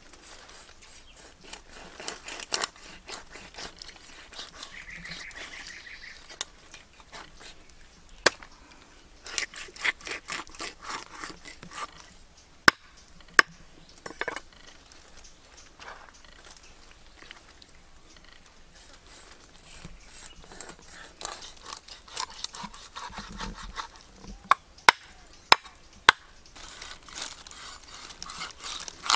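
A heavy cleaver scraping along a fish's skin in quick rasping strokes to take off the scales, with several single sharp chops of the blade through the fish into a wooden chopping block.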